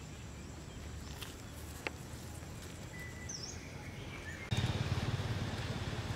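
Outdoor ambience with a steady low rumble, one sharp click a little under two seconds in and a brief high chirp near the middle. About four and a half seconds in, the background noise suddenly grows louder and stays so.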